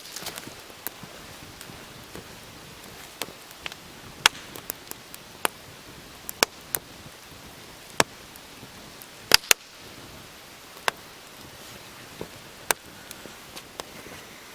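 Campfire of damp firewood crackling: scattered sharp pops at irregular intervals over a faint steady hiss.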